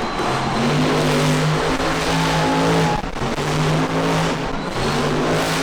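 Monster truck engine running hard at high revs, held steady with short drops in throttle about three seconds in and again near five seconds, over a loud noisy wash.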